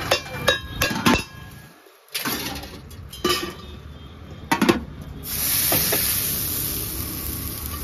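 Steel spatula chopping a rolled dosa on an iron griddle and steel plates clinking: several sharp metal knocks and clinks. From about five seconds in, a steady hiss.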